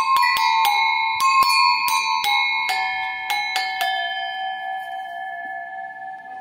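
Metal animal bells of several pitches ringing, struck about a dozen times in quick, uneven succession. After about four seconds the strikes stop and the last notes ring on and slowly fade.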